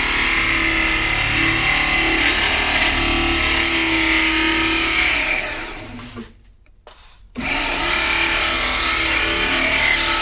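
An electric power tool motor running steadily, winding down about six seconds in, off for about a second, then switched back on and running again.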